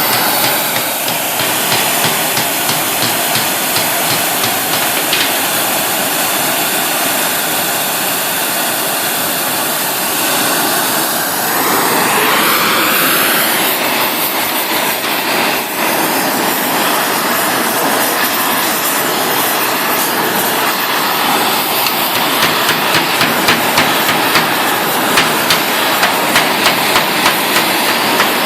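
Oxy-acetylene torch with a #10 rosebud heating tip burning with a steady, loud rushing hiss. In the last few seconds, regular hammer blows on the steel join in, about three every two seconds.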